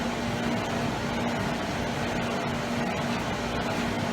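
Hot-water heating boiler running: a steady mechanical hum and whir with a constant low tone underneath.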